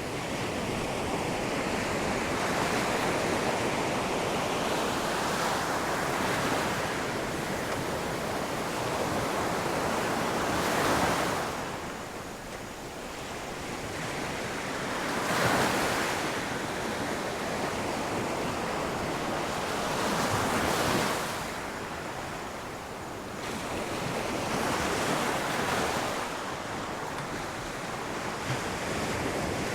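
Ocean surf washing onto a shore, with waves breaking about every four to five seconds.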